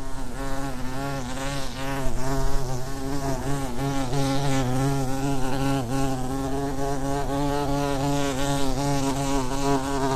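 Bee buzzing sound effect: one continuous buzz whose pitch wavers gently up and down.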